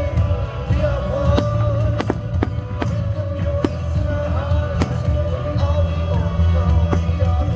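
Fireworks going off in a string of sharp bangs, roughly one every half second to a second, over loud music with singing and a heavy bass beat.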